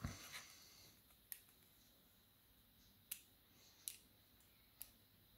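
Four faint, sharp metallic clicks spaced about a second apart: small lock pins, springs and a tool tapping against the lock as its pins are pushed out.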